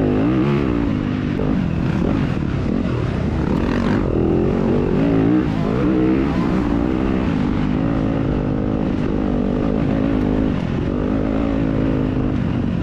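2021 Yamaha YZ250FX's 250cc single-cylinder four-stroke engine being ridden hard, revving up and dropping back again and again as the throttle opens and closes and the gears change.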